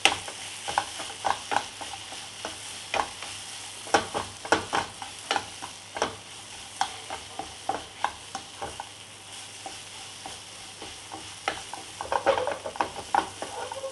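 Wooden spatula scraping and knocking around a nonstick frying pan in irregular strokes, stirring freshly added spices into a thick fried onion masala, which sizzles softly underneath. There is a quicker flurry of stirring near the end.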